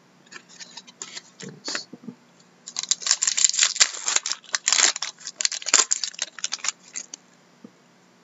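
Wrapper of a 2012-13 Fleer Retro hockey card pack being torn open and crinkled, a dense crackling that lasts about four seconds. Before it come a few light rustles and snaps of cards being handled.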